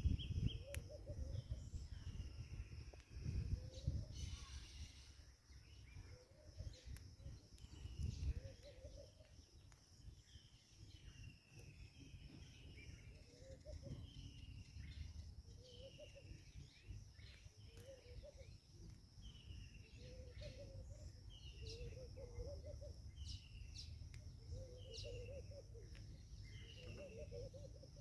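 Wild birds calling outdoors: a short falling note repeated about once a second, with lower warbling notes between, over a steady high insect drone. A few low rumbles in the first eight seconds.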